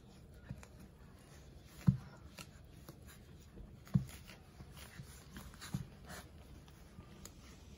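Two 19-day-old German Shepherd puppies play-wrestling on fleece bedding: soft scratching and rustling of paws and fur, with a few sharp low thumps, the loudest about two and four seconds in.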